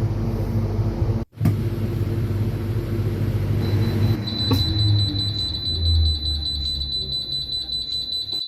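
Cold-room refrigeration unit humming, then about four seconds in the trapped-personnel alarm goes off: a loud, high-pitched beep pulsing about three times a second. As the alarm sounds, the refrigeration unit winds down and stops, as this alarm system is built to cut the unit when triggered.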